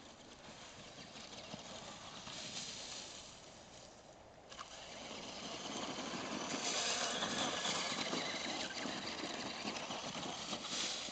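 Radio-controlled monster truck driving over gravel, a rough rushing noise of its motor and tyres. It grows louder about halfway through and is loudest as the truck runs close by.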